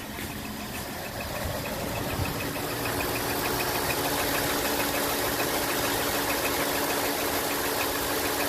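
2018 Ford F-150's 5.0 L V8 idling with a fast, even ticking knock, about five ticks a second, getting a little louder in the first few seconds. It is the 'typewriter' tick, which the owner takes for piston slap in the block rather than cam phaser noise.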